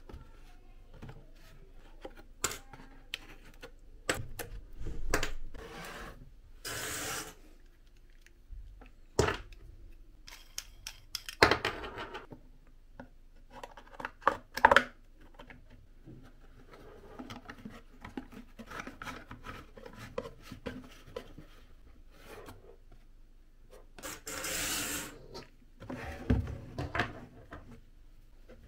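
Corrugated cardboard rubbing and scraping as folded box pieces are handled and slid together, in several longer scraping bursts between scattered clicks and taps. A hard plastic lamp socket is knocked against the cardboard as it is fitted.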